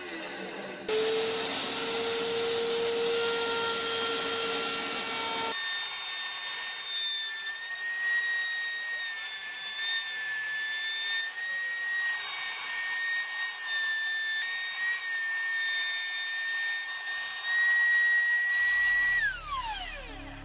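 Table-mounted wood router running at high speed with a steady whine while the edge of a walnut cutting board is fed past its bearing-guided bit. Near the end the motor is switched off and winds down in a falling whine.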